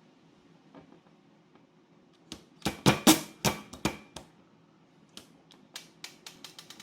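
Airsoft BB loader and magazine being worked by hand: a quick run of sharp plastic clicks and knocks about two seconds in as the loader rod pushes BBs into the magazine, then lighter scattered ticks.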